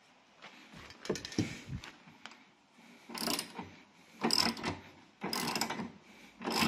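Socket ratchet clicking in short back-and-forth strokes while loosening 12 mm bolts on a car's rear bumper beam. There are about five bursts, each under a second, and the later ones are louder.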